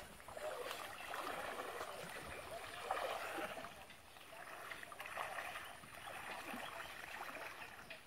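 Water sloshing and swishing around a person wading waist-deep through a shallow canal, in uneven surges as he pushes forward.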